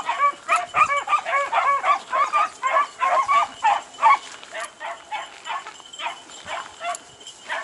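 A pack of beagles baying together while running a track through brush: many overlapping short yelps come thick and fast for about four seconds, then thin out to scattered calls.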